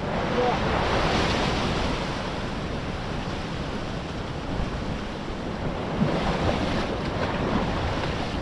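Sea surf washing in, with wind buffeting the microphone; the wash swells up about a second in and again from about six seconds in.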